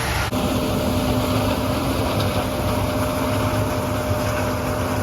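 Farm machinery running steadily, a low rumble with a constant hum, changing abruptly to a new steady sound about a third of a second in.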